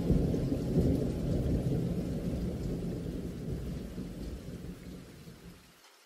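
Rainstorm with a low rolling rumble of thunder that dies away over several seconds and cuts off shortly before the end, leaving faint rain hiss.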